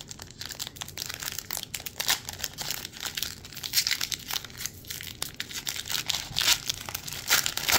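Shiny foil wrapper of a trading-card pack crinkling and tearing as fingers peel its crimped top seal apart, a steady run of crackles with a few louder rips.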